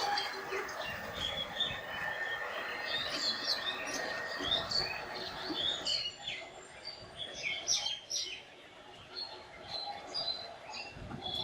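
Small birds chirping, many short quick notes in a busy, overlapping chorus.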